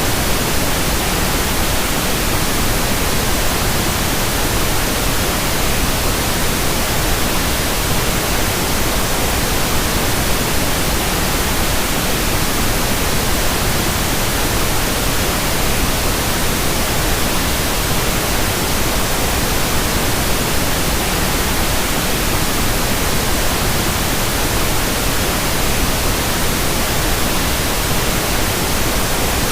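Steady, unchanging electronic noise, an even hiss spread from deep to high pitches, generated as a tinnitus masking sound.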